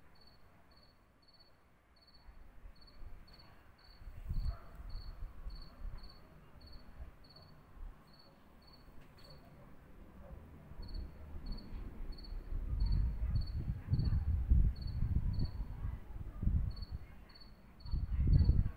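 A cricket chirping at an even pace, about two to three high chirps a second. Under it, irregular low rumbling comes and goes, loudest in the second half.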